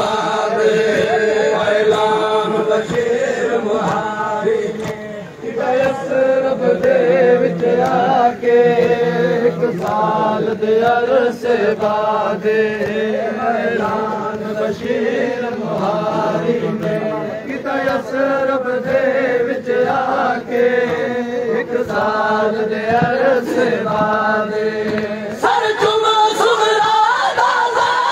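A noha, a Shia mourning lament, chanted by a group of men's voices together, with a short dip about five seconds in.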